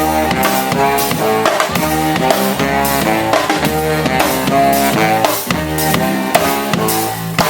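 Live band playing an instrumental passage: a drum kit keeps a steady beat under bass and guitar.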